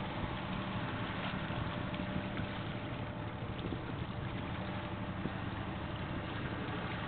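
Steady low drone of a tugboat's diesel engines carrying across the water, with no change in pitch or loudness.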